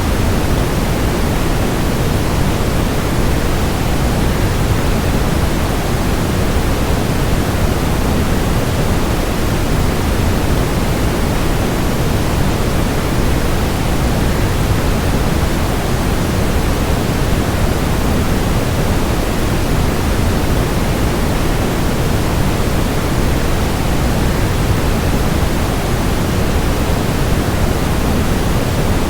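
Waterfall: a steady, even rush of falling water with most of its weight in the low end, unchanging throughout.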